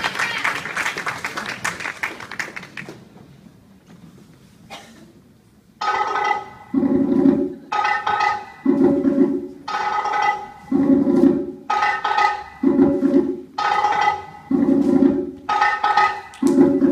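Audience applause dies away over the first few seconds. About six seconds in, cha-cha-cha dance music starts: a stop-start percussive figure, roughly one hit a second, with short pitched chords between the gaps.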